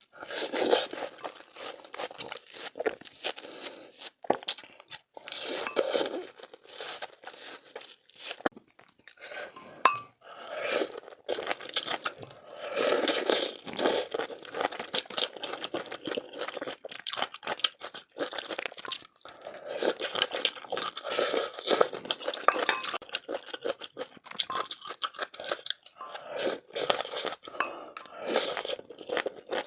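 Close-miked eating: crisp crunching bites and chewing, a quick irregular run of crunches with some louder bites throughout.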